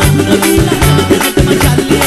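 Live band playing an instrumental passage: drum kit and bass keeping a steady, quick dance beat, with no singing.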